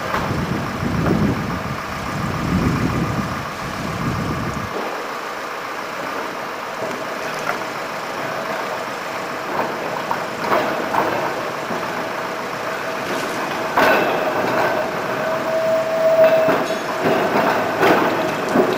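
Blackpool double-deck tram moving slowly over the track, its wheels knocking and clicking over rail joints and points, louder near the end, over a steady hum. A low rumble underneath stops about five seconds in.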